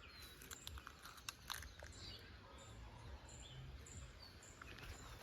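Faint outdoor ambience: a few short, high bird chirps and scattered small clicks and rustles over a low background hum.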